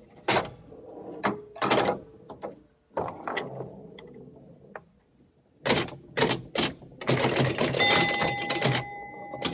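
A run of separate short cartoon sound effects: several sharp hits and swishes, some with a brief ring. About seven seconds in, a dense clattering noise starts with steady electronic tones held over it.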